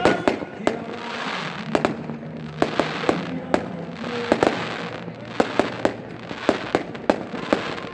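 Fireworks bursting: a loud bang right at the start, then an irregular series of sharp bangs, roughly one to three a second, over a continuous crackle, with faint music underneath.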